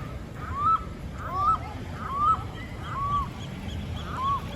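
Waterfowl honking over and over, about one call a second, each call rising then dropping in pitch, over a low rumble.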